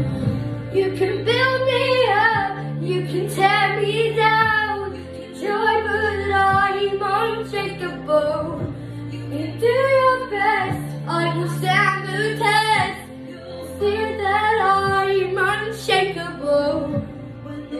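A girl singing a pop-style song over a backing track, with a low bass line that changes note every couple of seconds.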